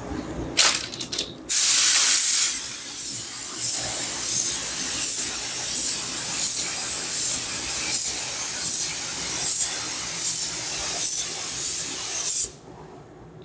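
Gravity-feed paint spray gun hissing as it sprays black paint onto a truck roof. It opens with a few short trigger pulls, then runs in a continuous spray that swells and eases in a steady rhythm, about three pulses every two seconds, with each pass. It cuts off abruptly about a second before the end.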